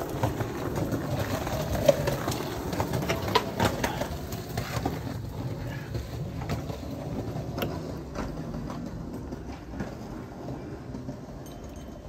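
Steady outdoor background noise with a low mechanical hum like a running engine, fading slowly, with scattered light clicks and knocks of wires and small parts being handled under the trailer tongue.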